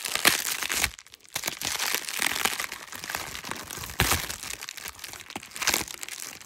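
Plastic bubble wrap crinkling and rustling as it is unwrapped by hand, with a few sharper crackles and a short lull about a second in.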